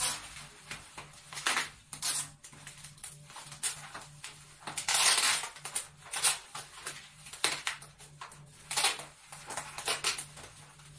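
Wrapping paper rustling and crinkling as it is handled and folded, in irregular bursts with one longer, louder rustle about five seconds in.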